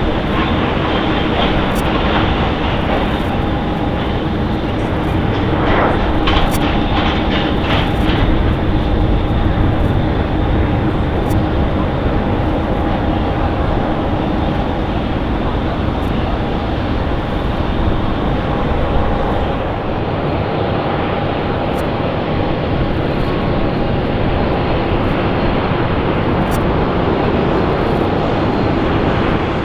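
Jet airliner engines running, a loud steady noise with two steady whining tones held through it.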